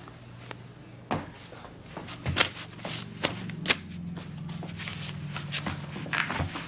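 A dog chewing and tearing a sheet of homework paper: irregular crinkles, rips and sharp snaps over a low steady hum.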